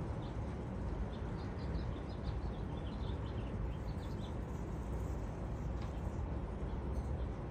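Small birds chirping in a quick run of short, high calls for the first few seconds, over a steady low outdoor rumble.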